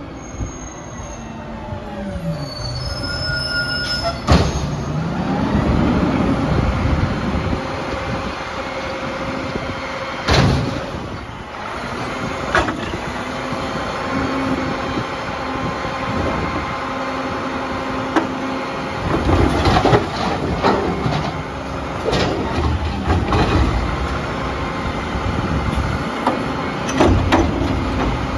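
Mack LR garbage truck with a Heil Sierra front-loader body and Curotto-Can arm working its cart route: the diesel engine and hydraulics run with steady whining tones, broken by several sharp bangs of carts being grabbed and dumped.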